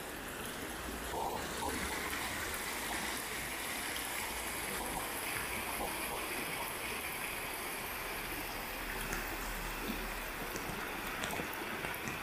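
Muddy rainwater runoff flowing down an unpaved dirt street, a steady sound of running water.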